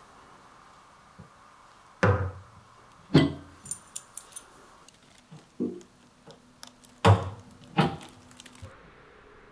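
Metal clinks and sharp knocks from body-repair work on a Porsche 991 GT3 RS's steel rear quarter panel: five louder knocks with lighter clicks between.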